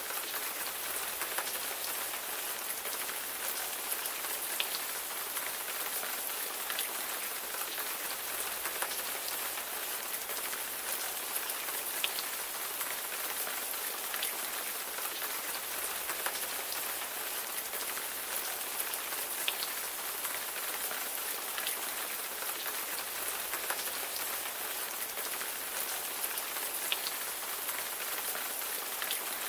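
Steady rain: a constant even hiss of rainfall with scattered, distinct drop ticks throughout.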